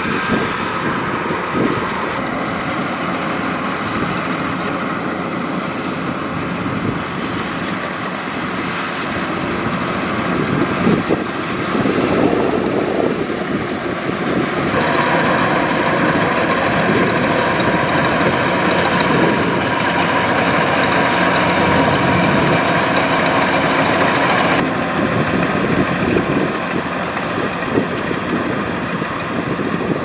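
Kubota DC-105X combine harvester working in a rice crop: its diesel engine and threshing machinery run with a steady hum. About halfway through it becomes louder and brighter for about ten seconds, then drops back.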